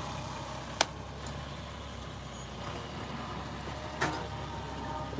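Steady outdoor background noise with a sharp click a little under a second in and a softer knock about four seconds in.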